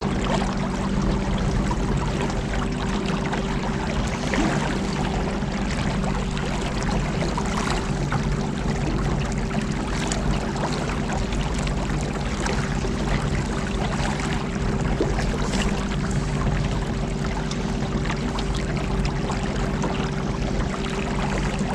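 Small boat running on an electric trolling motor: a steady motor hum with water rushing and splashing along the hull.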